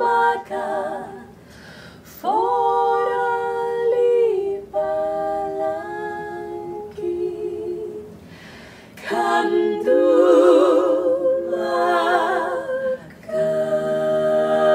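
Four women's voices singing a cappella in close harmony, sustaining chords in phrases, with short breaks about a second and a half in, about eight seconds in and near the end.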